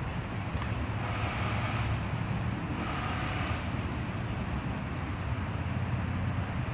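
Steady low rumble of road traffic, swelling briefly with a higher hiss about a second in and again around three seconds in.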